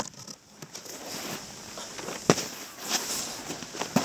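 Snowboard sliding over packed snow with a steady scraping hiss. It hits the snow with a sharp smack a little over two seconds in and again near the end, as the board lands from hops during ground tricks.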